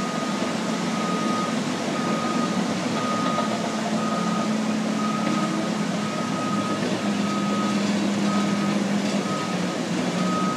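A heavy-equipment backup alarm beeping about once a second, each beep about half a second long. Under it runs the steady diesel engine drone of bulldozers and a front-end loader working sand.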